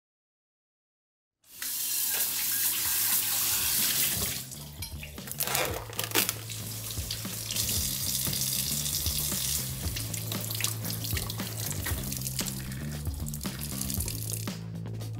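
Kitchen tap running into a stainless steel sink, splashing over raw chicken pieces being rinsed under it. It starts after about a second and a half of silence and then runs steadily.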